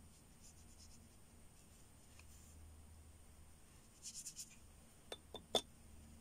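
Watercolour brush stroking water onto paper, a faint soft scratching with a louder run of quick strokes about four seconds in. Three short sharp clicks follow near the end.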